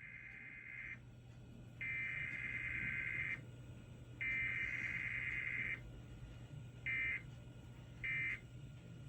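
Emergency Alert System SAME digital data bursts: warbling data tones in long bursts of about one and a half seconds with short gaps (the header), followed by short bursts about a second apart (the end-of-message code). A steady low hum runs underneath.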